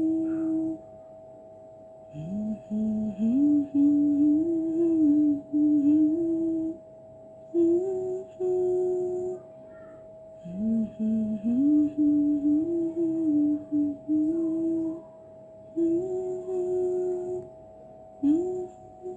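A voice humming a slow tune in phrases of a few seconds, sliding up into held notes, with short pauses between phrases. A steady faint tone runs underneath.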